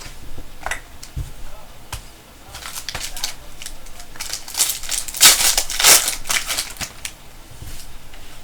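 Trading cards and their plastic or foil packaging being handled: irregular crinkling and rustling, busiest and loudest a little past the middle.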